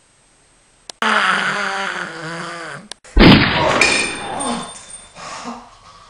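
After a second of near silence, a harsh, growling cry lasts about two seconds; then a sudden loud burst breaks into a man's strained cries and groans that fade off, as though he is being seized by the throat.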